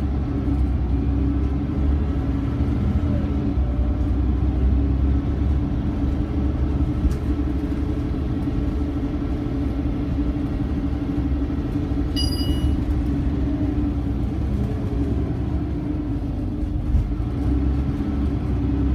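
Scania OmniCity single-deck bus under way, heard from inside the passenger saloon: a steady diesel engine drone and road rumble, rising and falling gently with the engine's speed. A brief high-pitched beep sounds about two-thirds of the way through.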